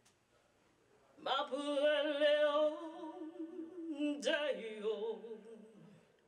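A single voice singing without accompaniment: a long held note with vibrato starting about a second in, then a shorter phrase that falls in pitch and fades.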